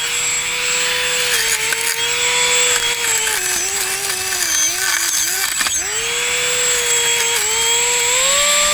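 Homemade weed cutter driven by a drone motor with a 3D-printed blade, running with a steady high whine. The whine's pitch sags and recovers as the blade bites into dry grass, with one sharp dip past the middle. A hiss of grass being cut runs with it.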